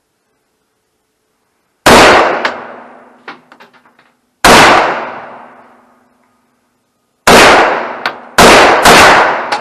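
Semi-automatic AK-pattern rifle fired five single shots, each with a long echoing tail: three spaced a few seconds apart, then two quicker ones near the end.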